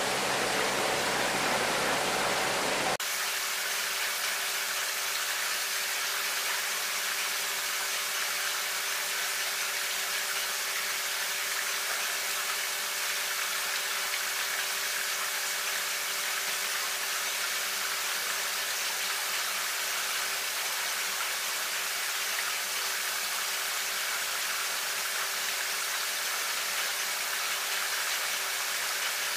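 Steady rushing hiss of water running from a tap into a tank, with a faint steady hum under it. The sound changes abruptly about three seconds in, then runs on evenly.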